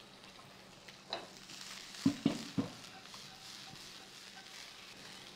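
Chopped onion frying in hot oil with mustard seeds, curry leaves and dried red chillies in a non-stick pan, sizzling steadily as it is stirred with a spatula. About two seconds in there are a few sharp knocks of the spatula against the pan.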